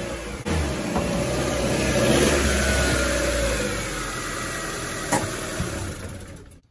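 Ford Focus 1.4's four-cylinder petrol engine running as the car is driven up onto wooden ramps, the revs rising and easing off around two seconds in. A single sharp click comes about five seconds in, and the engine sound cuts off near the end.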